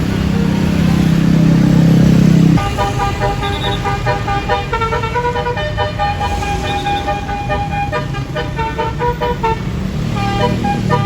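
Tour bus's basuri 'telolet' horn with roof-mounted trumpets. A loud low drone for the first two and a half seconds stops abruptly, then the horn plays a quick tune of short, high, changing notes.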